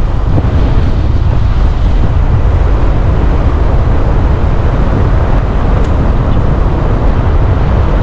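Steady, loud wind rumble on the microphone mixed with road noise from a moving vehicle, without any clear tone or separate events.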